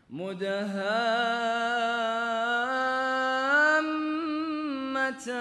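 A man reciting the Quran in melodic tajweed style, holding one long drawn-out note with small ornamental wavers; the pitch steps up about halfway through, and the voice breaks off briefly near the end before continuing.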